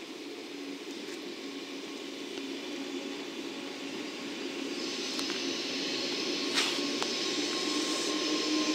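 N700-series Shinkansen train passing at low speed: a steady low hum with a high whine that joins about five seconds in, the whole getting louder as the cars go by. A single sharp click about six and a half seconds in.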